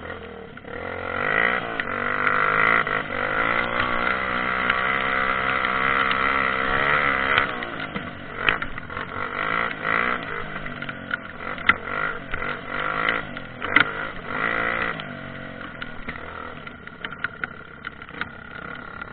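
Trail motorcycle engine running, its pitch wavering up and down with the throttle, then easing off after about seven seconds. Sharp knocks and clatter come through the middle, and the engine gets quieter near the end.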